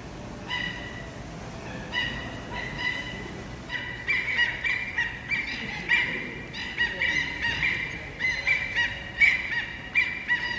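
Birds calling over and over: short pitched calls, a few at first, then coming thick and fast from about four seconds in.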